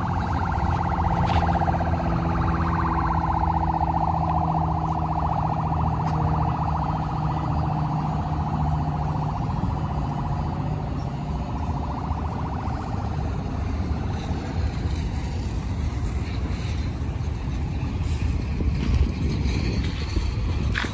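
Highway traffic passing, a steady low rumble. Over the first several seconds a wavering, siren-like tone fades away.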